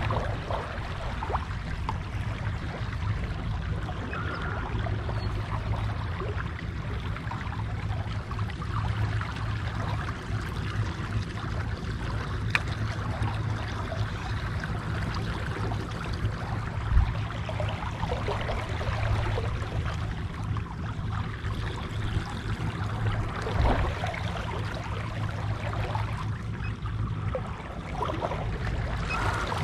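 Water trickling and lapping against a kayak's hull on a calm river, over a steady low hum, with a few small knocks, the sharpest a little past halfway.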